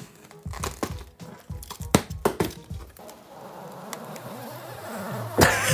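Packaging being opened by hand: a utility knife clicks and scrapes through packing tape and cardboard, then plastic wrapping rustles steadily and grows louder toward the end.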